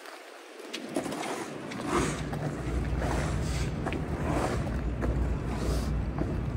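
Wind rumbling on the camera microphone, briefly dying away at the start and building back within the first couple of seconds, with faint footsteps on wet pavement about once a second.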